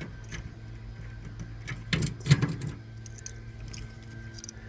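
A set of keys jangling, with a few sharp clicks and knocks about two seconds in and lighter tinkling after, over a faint steady hum.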